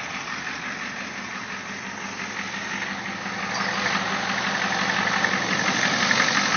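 A 1992 Ford F-250's 7.3-litre International diesel V8 idling steadily, growing louder about halfway through.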